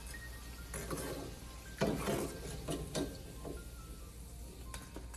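Soft background music, with a few light clinks and scrapes of a metal spoon against the frying pan as the fried balls are lifted out.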